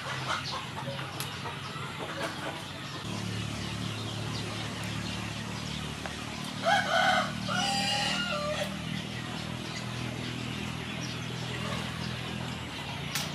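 A rooster crows once, a call of about two seconds midway through, with chickens clucking around it.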